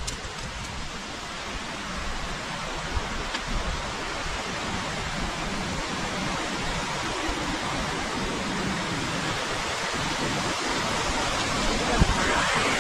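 Rushing water of a rocky mountain stream, a steady hiss that grows louder toward the end as it comes closer. There is a single low bump near the end.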